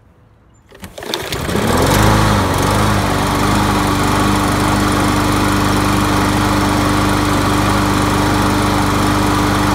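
A Troy-Bilt push mower's Briggs & Stratton 550EX 140cc engine starts about a second in, speeds up and then settles to a steady run. This is its first start after the contaminated fuel system was cleaned.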